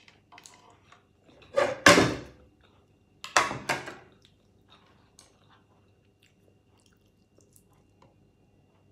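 Eating a cooked crab by hand: two loud bursts of crunching and crackling, about one and a half seconds in and again about three and a half seconds in, then only faint clicks of shell and chewing.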